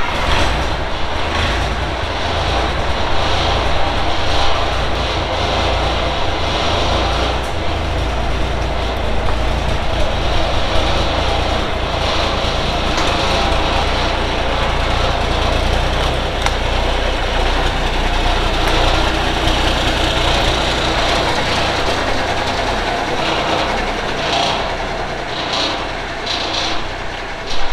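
1983 Peterbilt 359 semi truck's diesel engine running steadily as the truck pulls slowly out of the shop; the rumble drops off near the end as it moves away.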